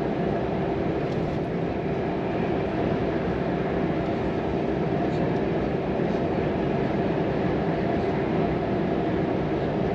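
Volvo FM truck's 420 hp diesel engine running steadily under way, heard from inside the cab: a constant drone with a steady hum, mixed with tyre and road noise.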